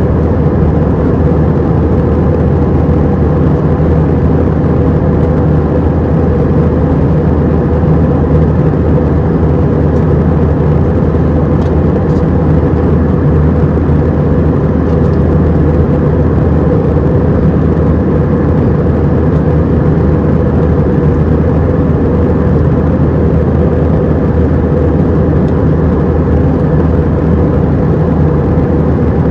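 Cabin noise inside an Airbus A319-100 jet airliner: a steady low engine drone with a rushing airflow hiss, loud and unchanging.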